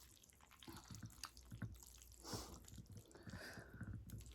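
Close-miked wet eating sounds of black bean ramen noodles being chewed and slurped: soft repeated lip smacks and mouth clicks, with a louder slurp about two seconds in.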